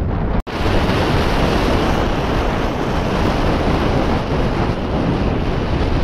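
Wind buffeting the microphone, a steady loud rush of noise that breaks off for an instant about half a second in.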